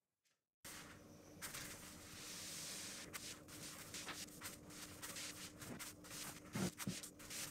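Toilet paper roll spun and handled on a wooden tabletop: faint paper rubbing and light ticks with a few soft knocks, over quiet room hiss and a low steady hum. The sound cuts in abruptly about half a second in.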